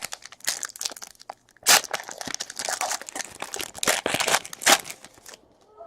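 Crinkling and tearing of a trading-card pack's plastic wrapper as it is pulled open, with the loudest rips about two seconds in and near the end.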